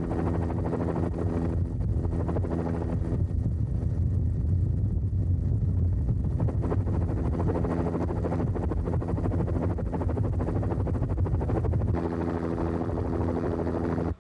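Loud, steady mechanical drone: a level hum with a heavy low rumble under it, holding the same pitch throughout and stopping abruptly at the end.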